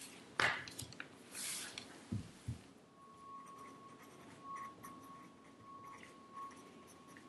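A sheet of paper is handled and rustled, with two soft thumps as it is laid on the table. Then come faint scratches and ticks of a pencil writing on paper, over a thin steady whine.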